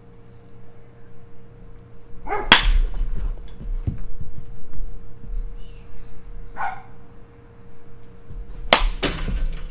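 A metal baseball bat hitting a ball twice, about six seconds apart, the first about two and a half seconds in. Each hit is a sharp ping with a brief ring, preceded by a short swish of the swing.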